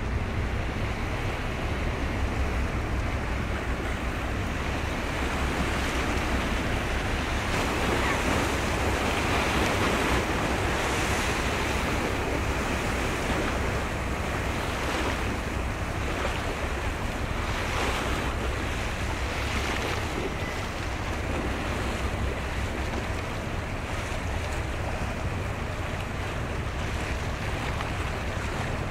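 Steady rush of choppy, fast-running sea water with wind buffeting the microphone, swelling and easing in waves, over a constant low rumble.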